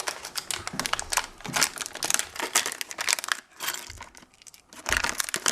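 Irregular crinkling and clicking of plastic being handled as a nylon strip is fitted onto a balance-board wheel motor mount, busier again near the end.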